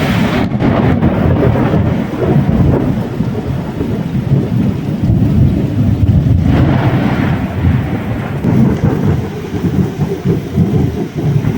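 Heavy rain falling through a thunderstorm, with a deep, continuous rumble of thunder under the hiss of the rain. About six seconds in, the rain noise swells briefly higher and brighter.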